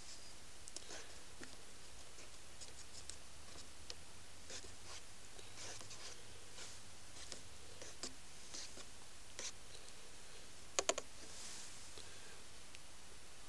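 Light, scattered small clicks and scratching sounds over a faint steady hiss, with a quick run of three sharp clicks about eleven seconds in.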